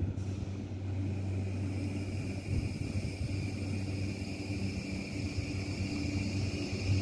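JR Kyushu 821 series electric train drawing slowly into the station: a steady low hum with a high whine that grows louder as it comes closer.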